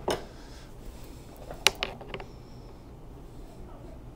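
A few short, sharp clicks from a hand tool working the crank arm bolt of an e-bike, the strongest pair coming one and a half to two seconds in, over a low steady room hum.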